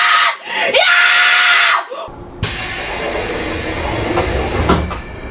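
A boy yelling at a high pitch for about two seconds. After a short lull comes a loud, sharp hiss from a commuter train's pneumatic door engine, lasting about two seconds and cutting off abruptly.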